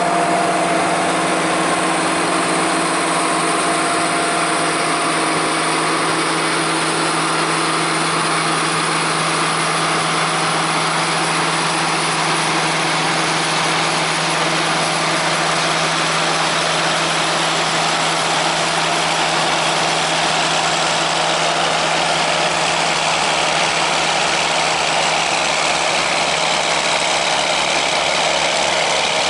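Heavy farm machinery engines running steadily: a constant engine drone that holds level throughout.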